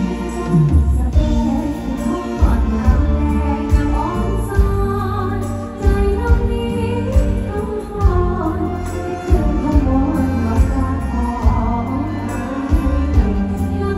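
Female singer singing a Thai mor lam song live through a PA system, backed by a band with heavy bass and a steady drum beat.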